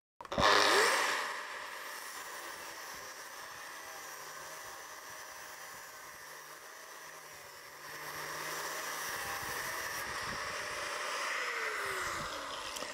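Angle grinder with a thin abrasive cut-off disc started up and cutting through a steel flat bar: a steady high whine over the hiss of the disc in the metal, growing louder partway through. Near the end the grinder is switched off and its pitch falls as the disc spins down.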